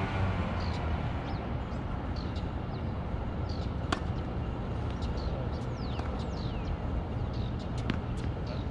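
Tennis ball struck by a racket: two sharp hits about four seconds apart, over a steady low background rumble with faint high chirps and a few short falling squeaks.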